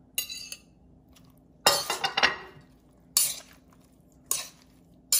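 Chopsticks clinking and scraping against a stainless steel mixing bowl as a salad is tossed, in separate clatters about once a second, the loudest around two seconds in.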